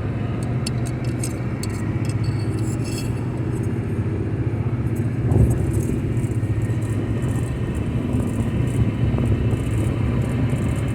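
Steady low engine and road drone of a moving vehicle, heard from inside, with faint light rattles in the first few seconds and a single bump about five seconds in.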